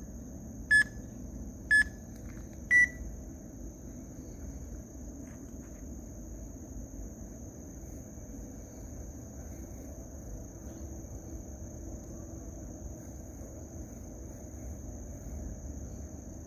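Countdown timer beeping once a second, three beeps with the last one higher in pitch, marking the start of a timed exercise round. After that, only a steady low background hum with a thin high whine.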